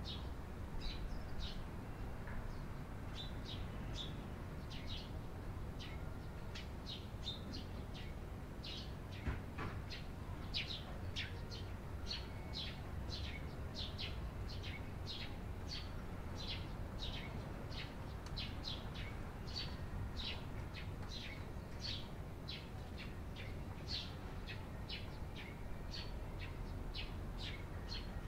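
Eurasian tree sparrows chirping: a steady, unbroken series of short, high chirps, about one or two a second.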